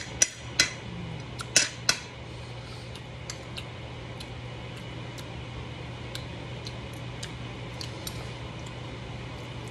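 Metal spoon and fork clinking and scraping on a ceramic plate of rice: four sharp clinks in the first two seconds, then fainter, scattered taps. A steady low hum runs underneath.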